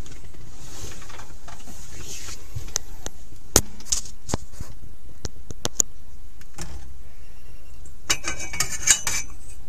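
Scattered sharp clicks and knocks, then a quick run of ringing metallic clinks and jingles about eight seconds in, over a steady low background noise.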